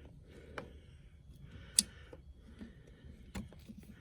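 Hand tools working on the metal mechanism of an antique NCR cash register while a screw is being taken out: a few sharp metallic clicks and taps, the loudest about two seconds in.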